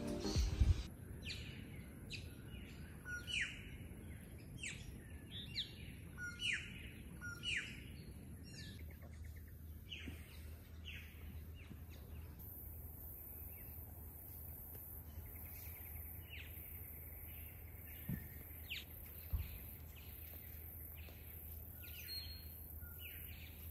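Birds calling: many short, downward-sliding calls in quick succession for the first several seconds, then fewer and fainter ones.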